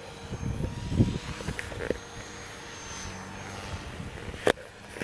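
Distant airplane flying overhead, a faint steady drone. Low rumbling gusts of wind hit the microphone in the first two seconds, and there is one sharp click about four and a half seconds in.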